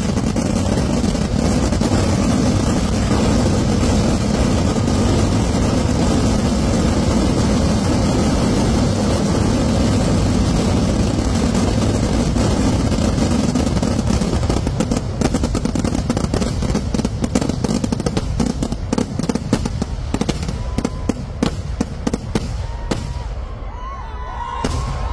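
Kerala vedikkettu fireworks barrage: massed firecrackers and shells going off so densely that they merge into one continuous noise for the first half. The barrage then thins into separate sharp bangs that grow sparser and die away near the end.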